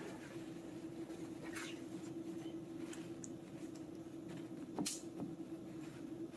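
Paper towels rustling and crinkling as they are pressed and patted onto raw chicken breasts to dry them, over a steady low hum. A sharp click about five seconds in is the loudest sound.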